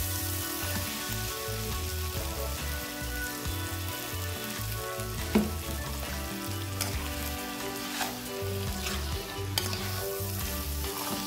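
Ackee and smoked fish sizzling as they fry in a metal pot, stirred and scraped with a metal spoon. A sharp knock comes about five seconds in, with a few lighter clinks later.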